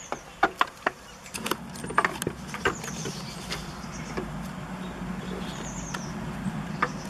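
A run of sharp knocks in the first three seconds, then a steady low motor hum that starts about a second in and carries on.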